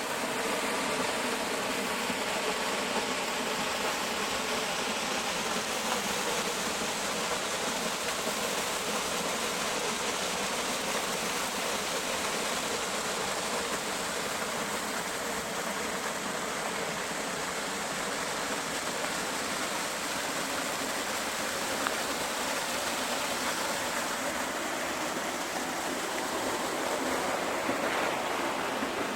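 Waterfall pouring steadily, an even rush of falling water.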